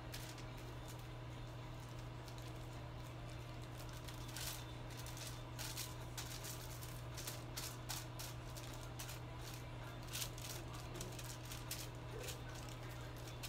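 Light crinkling and ticking of aluminium foil and a tint brush as hair colour is brushed onto a foiled section, short scattered crackles that come more often after a few seconds, over a steady low hum.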